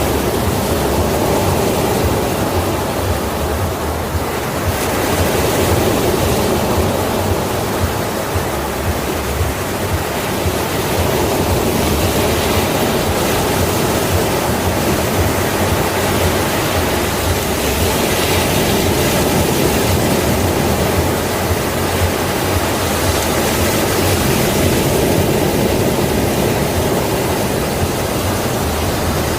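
Sea waves: a continuous rush of surf whose loudness swells and eases slowly over several seconds.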